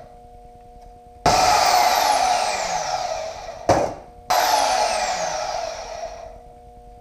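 Handheld power grinder run in two bursts, each starting abruptly and winding down with falling pitch, plus a short blip between them. It is being used on exhaust tubing that has to be shortened.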